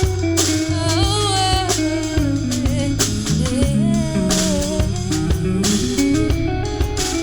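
Live R&B band of bass guitar, drum kit and electric guitar playing, with a singer's melodic vocal line gliding over it and no clear words.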